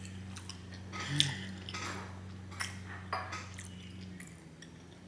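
Close-miked eating of spaghetti in meat sauce: wet chewing and mouth smacks, with a few short clicks of a fork against the plate. A low steady electrical hum runs underneath and fades near the end.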